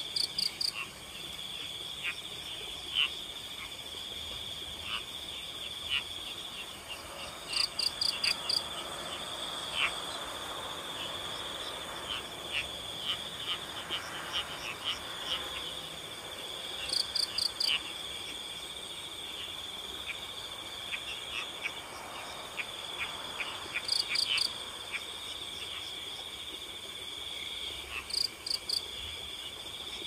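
Night chorus of crickets trilling steadily, with frogs calling now and then. A higher, rapid pulsed call breaks in about every eight seconds, five times.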